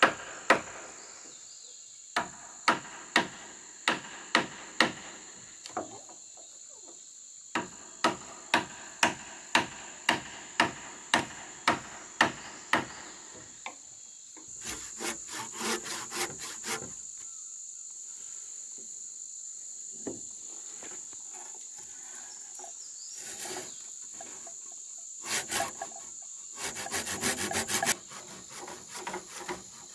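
Hammer driving nails into a wooden roof frame: sharp strikes about two a second in two long runs, followed by a hand saw cutting a wooden plank in quick strokes near the end. A steady high-pitched buzz of insects runs underneath throughout.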